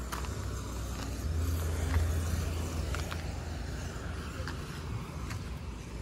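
Footsteps on a concrete-block foundation wall and loose stone, a few short scuffs about a second apart, over a low rumble that swells about two seconds in and then fades.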